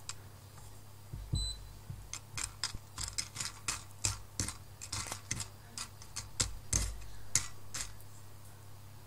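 Brazilian Yellow Bourbon coffee beans popping in first crack as they roast in a pan: sharp, irregular cracks, thickest from about two seconds in until near the end, over a steady low hum.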